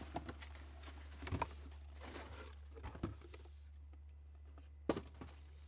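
Packing paper and a cardboard box rustling as a coil of rubber wiper seal is pulled out and handled, in scattered irregular rustles and clicks, with one sharp tap about five seconds in, over a low steady hum.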